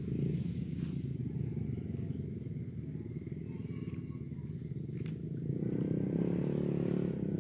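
A low, steady engine-like rumble that grows louder for a couple of seconds near the end.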